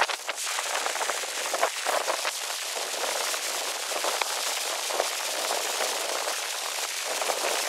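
Multi-fuel camp stove burning under a canteen cup of water: a steady hiss with frequent small crackles and pops as the water comes toward the boil.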